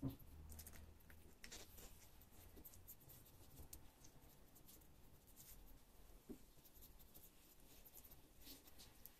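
Faint, irregular scratching strokes of a plastic scraper rubbing clear film down over paper, with one soft knock at the very start.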